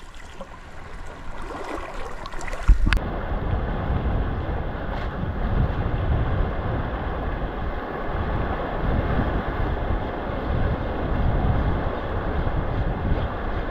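Wind buffeting the microphone in an uneven low rumble over a steady wash of sea water, with a single sharp knock about three seconds in.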